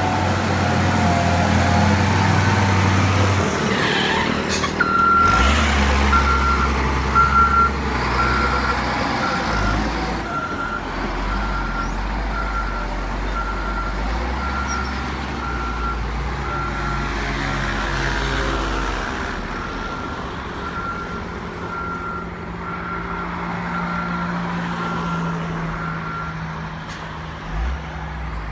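Heavy diesel construction machinery running, with a reversing alarm giving a long, even series of beeps from about five seconds in until near the end. A few sharp knocks about four to seven seconds in.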